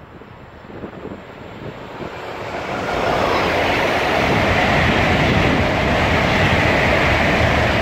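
LNER Azuma (Class 800/801) high-speed train approaching and passing at speed: a rushing noise of wheels on rail and air that builds over the first three seconds, then holds loud as the coaches go by.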